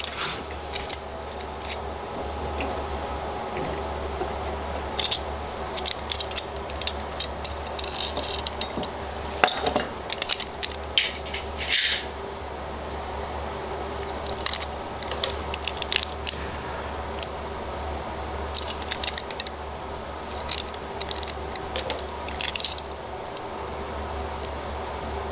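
Small handling noises at a workbench: scattered clicks, taps and crinkles as metal foil tape is handled and pressed onto a wooden jig, over a steady background hum.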